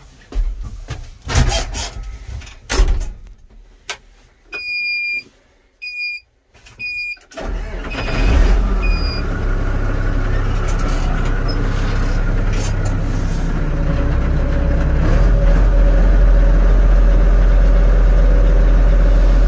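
Pauny 500 tractor's Cummins diesel engine being started from the cab: a few clicks and knocks, three short beeps, then the engine catches about seven seconds in and runs. It grows louder near the end.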